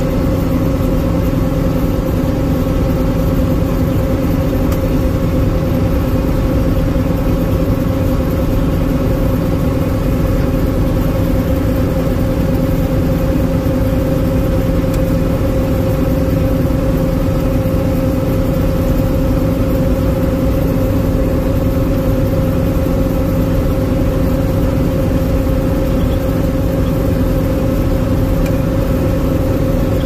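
Combine harvester running steadily at working speed, heard from inside its cab while its unloading auger empties grain into a truck: a constant machine drone with a steady hum.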